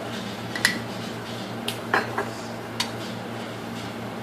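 A spoon clinking against a bowl a few times, sharp separate clicks, as chilli powder is added to the mutton, over a steady low hum.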